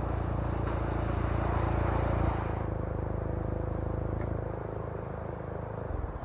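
A 2018 Volkswagen GTI's turbocharged four-cylinder engine running with a steady low drone. The drone eases off about two and a half seconds in and fades toward the end.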